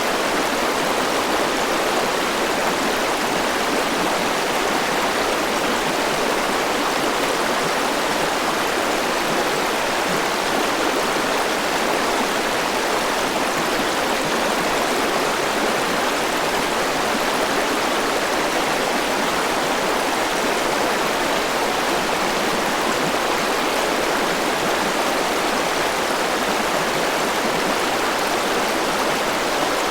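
A forest river rushing over rocks, a steady, even wash of flowing water.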